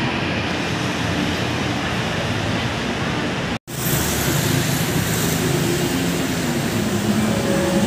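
Busy city street ambience: steady traffic noise with the voices of passers-by. It breaks off for an instant about three and a half seconds in, then carries on.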